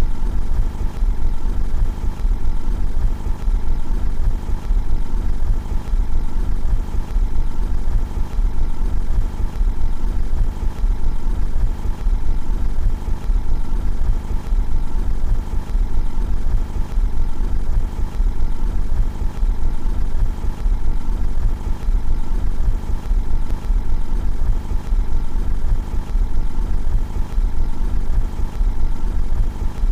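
Car engine idling steadily, heard from outside the car, with a deep, even running sound that does not change.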